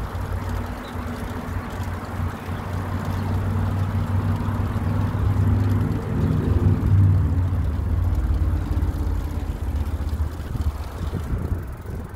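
Wind rumbling on the microphone of a moving bicycle, with a motor vehicle's engine hum that swells over several seconds and is loudest about seven seconds in before fading.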